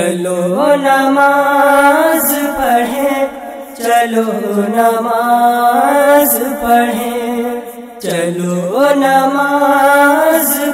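Girls singing an Urdu devotional song calling people to prayer into a microphone, in long drawn-out melodic phrases with a short break about every four seconds.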